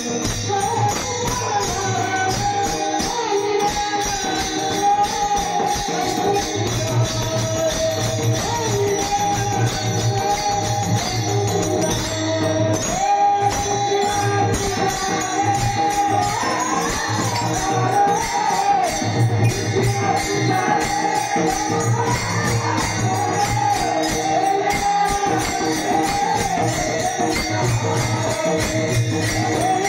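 Marathi devotional kirtan music: a wavering sung melody over a steady, even beat of jingling percussion.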